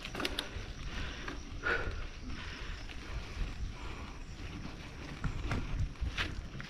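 Mountain bike being ridden on a trail: a steady rumble of wind on the microphone, with scattered clicks and rattles from the bike and trail.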